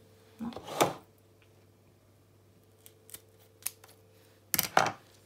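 Kitchen scissors snipping the tough stems off blanched grape leaves. There are two sharp cuts, one about a second in and one near the end, with a few light clicks of the blades in between.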